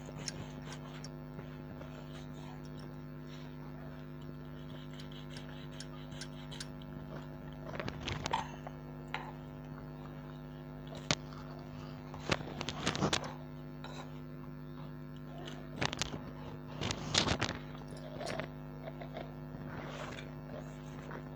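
Knife cutting the toasted crusts off slices of bread on a wooden chopping board: short, scattered bouts of scraping and tapping, the loudest a little past the middle and again about three-quarters through, over a steady low electrical hum.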